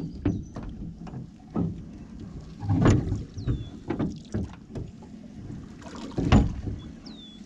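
Knocks and thumps around a small fishing boat with a low watery haze, the loudest thumps about three and six seconds in. A short high falling whistle comes twice, about three and a half seconds apart.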